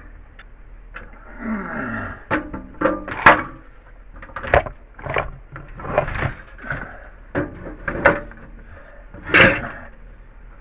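A pressure washer and its engine being handled and tipped onto its side: a string of irregular knocks and clunks, with a scrape falling in pitch just over a second in.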